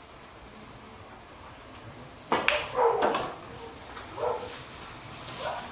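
A dog barking in short bursts. The loudest barks come about two seconds in, with more near the end.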